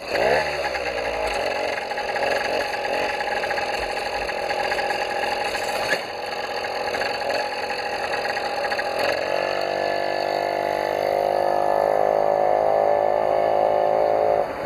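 Small engine of a FUKI FK310 motorized bicycle catching right at the start and running steadily. About nine seconds in its pitch begins to climb slowly as the engine is opened up to ride off.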